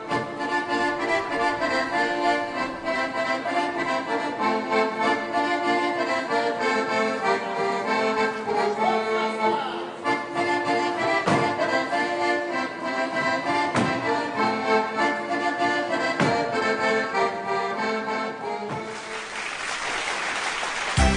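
Traditional folk dance music played live, with a lively melody over a steady beat. About two seconds before the end, a crowd's noise rises under the music.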